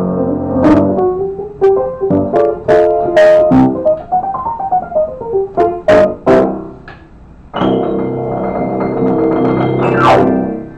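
Upright piano played solo: runs of notes climbing and falling, a short pause about seven seconds in, then a held chord that ends in a quick downward glissando near the end.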